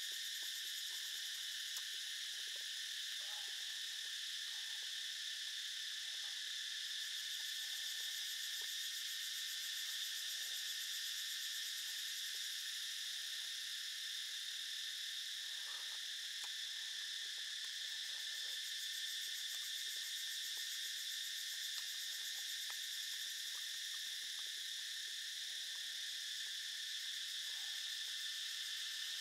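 Steady insect chorus in forest, several high buzzing tones held without a break. Faint chewing and small utensil clicks now and then underneath.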